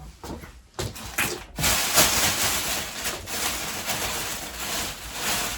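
Rustling and crinkling of packaging being handled, with a few light knocks in the first second and a half before a steady rustle sets in.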